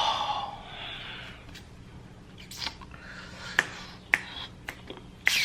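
Scattered sharp clicks and taps, about six of them at irregular spacing, the loudest near the end, over a faint steady hum. A short "oh" is spoken at the start.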